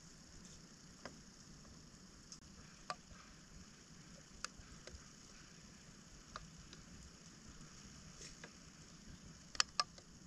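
Faint, scattered clicks and ticks over a low steady hiss, with two sharper clicks close together near the end.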